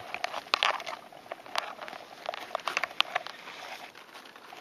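Scattered, irregularly spaced sharp clicks and crackles over faint rustling.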